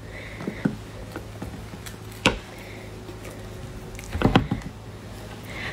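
Opened durian being handled on a table: a few knocks and clicks as husk pieces and pods are moved, one sharp knock about two seconds in and a short cluster of them about four seconds in, over a low steady hum.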